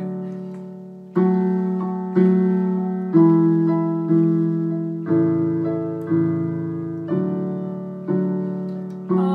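Piano chords struck about once a second in a steady rhythm, each left to ring and fade before the next: an instrumental passage of the song with no singing.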